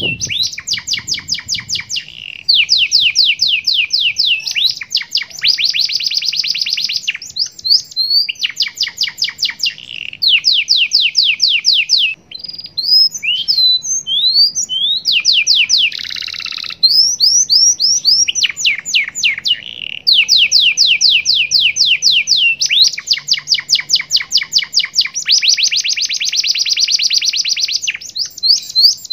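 Domestic canary singing: long, fast trills of rapidly repeated notes, phrase after phrase with brief pauses, and a short run of slower, separate chirps about halfway through.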